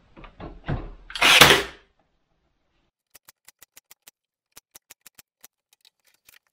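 A cordless nailer fires once into a wooden drawer front, one loud short shot about a second and a half in, after a few light knocks of the tool being set against the wood. A run of faint quick clicks follows a couple of seconds later.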